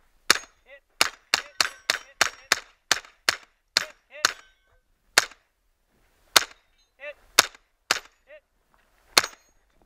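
A pistol-caliber carbine firing about sixteen shots at steel targets: a fast string roughly three shots a second for the first four seconds, then slower single shots a second or more apart. Fainter metallic clangs of steel plates being hit fall between some of the shots.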